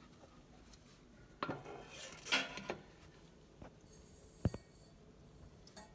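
Handling sounds on the metal body of a coffee roaster: a few scattered light knocks and metallic clinks. The sharpest comes about four and a half seconds in and leaves a short ring.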